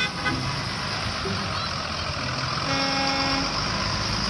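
A line of yellow school buses pulling away along a wet street, their engines running steadily. A short pitched tone sounds about three seconds in and lasts under a second.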